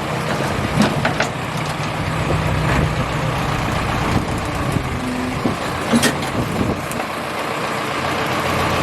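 A heavy vehicle's engine running steadily, with several sharp knocks over it.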